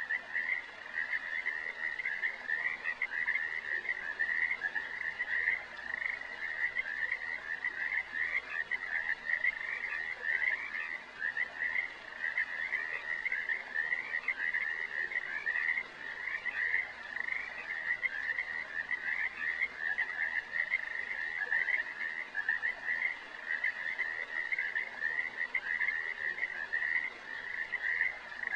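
A steady chorus of calling animals: rapid trilled calls packed closely together at one fairly high pitch, going on without a break.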